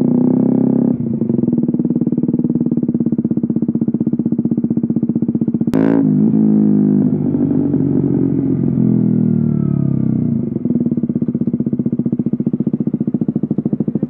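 KTM Duke 125's single-cylinder engine running through an Akrapovic exhaust while riding, with a single sharp crack about six seconds in. The engine note then falls as the bike slows and settles to a steadier, pulsing low note near the end.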